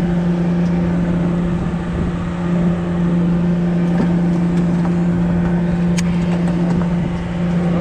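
Party fishing boat's engine running with a steady low hum, over a rush of wind and sea noise; a single sharp click about six seconds in.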